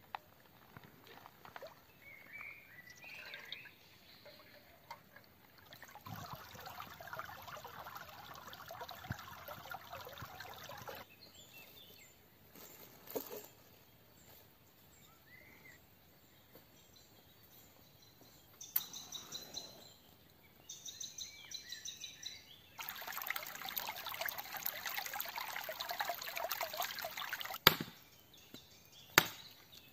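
Water pouring and trickling in two spells of several seconds each. Near the end come two sharp axe blows into wood.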